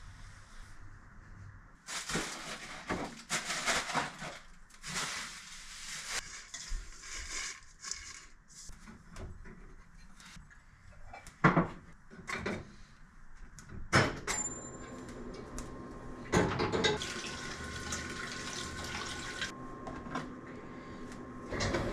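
Dishes, bowls and plastic containers clattering and knocking as they are loaded into a dishwasher rack, with a kitchen tap running steadily in the later part.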